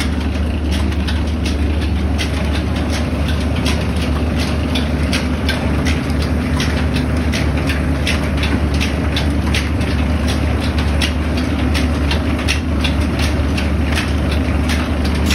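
Mill machinery running steadily: a red mustard-oil expeller and belt-driven grinder giving a loud, constant low hum, with sharp clicks several times a second.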